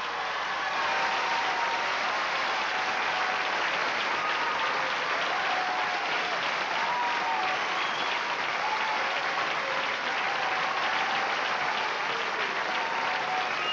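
Studio audience applauding steadily at the end of a dance number, with a few faint cheers heard over the clapping.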